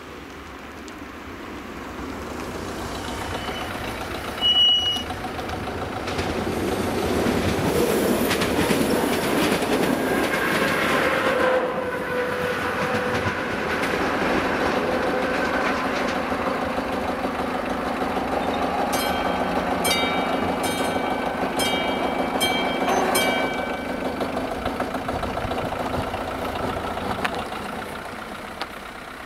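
Passenger train passing over a level crossing: its running noise builds up, holds for about twenty seconds, then fades. A brief high-pitched horn toot comes about four and a half seconds in. Around twenty seconds in there is a run of sharp clicks with a metallic ringing from the wheels.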